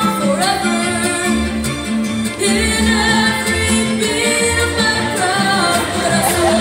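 A recorded song playing: a singer's voice over a steady, repeating bass line.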